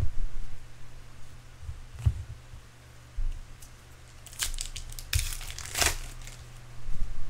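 Trading-card pack wrapper crinkling as it is handled: a soft bump about two seconds in, then a few short crinkles between four and six seconds.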